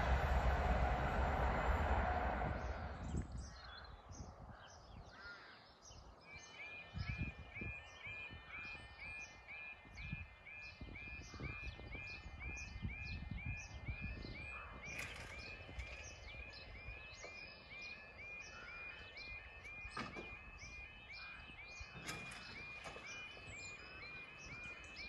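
A Class 43 HST passing at speed, its rail noise fading away over the first few seconds. Then a level crossing's warbling alarm sounds steadily at about two warbles a second, warning that the crossing sequence has started and the barriers are lowering for an approaching train.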